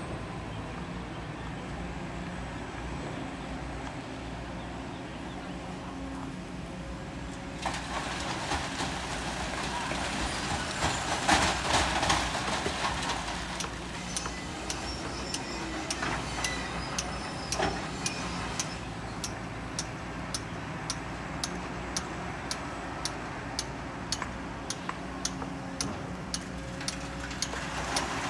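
Hydraulic excavator engine running steadily under load. About a third of the way in there is a swell of scraping and rattling as the bucket digs into sand and stones. In the second half, sharp regular clicks come about twice a second.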